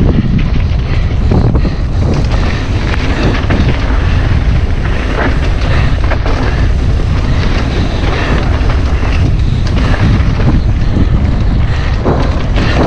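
Wind buffeting the action camera's microphone at speed on a mountain-bike descent, with the tyres rolling over dry dirt and loose rock and the bike rattling in small, irregular knocks.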